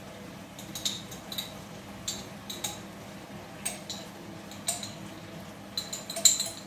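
Metal spoon clinking and scraping against a glass jar of curry paste as the paste is scooped out and knocked into the pot: about a dozen short, irregular clinks, the loudest near the end.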